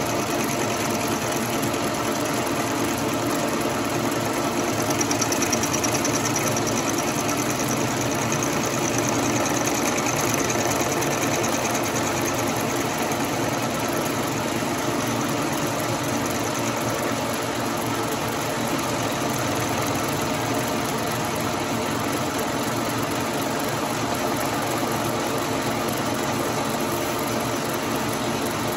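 Logan metal lathe running steadily while a carbide insert takes an interrupted cut along a spinning Monel trumpet piston, with a higher hiss over the motor from about five seconds in to about twelve.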